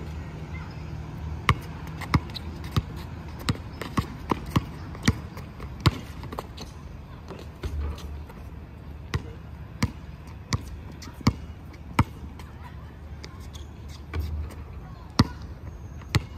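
A basketball dribbled on an outdoor hard court: sharp single bounces at an uneven pace, with short pauses between runs of dribbles.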